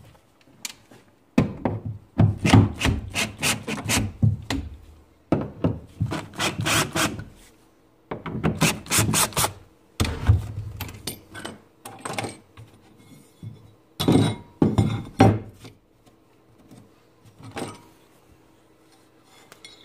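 Repeated bursts of hand scraping and rubbing as a router is unscrewed and worked loose from a CNC machine's plastic mount, with quieter pauses between the bursts.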